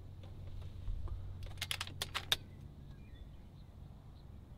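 A quick run of about six sharp mechanical clicks, a couple of seconds in, from handling the FX Impact MKII air rifle as it is readied to fire. Faint bird chirps and a low steady hum lie underneath.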